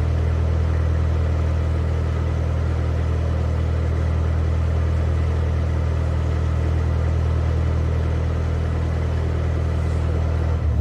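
A narrowboat's diesel engine running steadily while cruising: a low, even drone that does not change.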